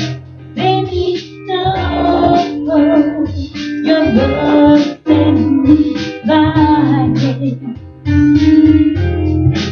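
Music: a song with plucked guitar, a steady bass line and a singing voice.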